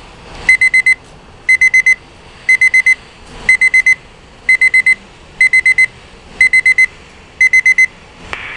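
Alert-equipped weather radio receiver's alarm beeping in groups of four quick high beeps, about once a second. The alarm has been set off by the weekly alert test.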